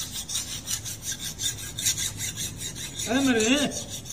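Hand file rasping against a small workpiece in quick, regular back-and-forth strokes. A short wavering vocal sound from a person cuts in briefly about three seconds in.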